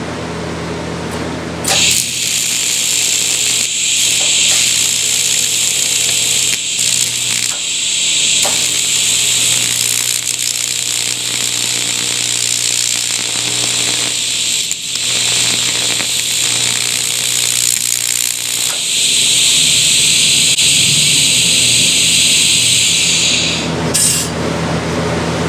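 AC TIG welding arc on cast aluminum, a steady harsh buzzing hiss that strikes about two seconds in, dips briefly a few times, grows louder near the end and cuts off about a second before the end. The tack is taking poorly: the aluminum does not want to weld well, with the steel table drawing off the heat.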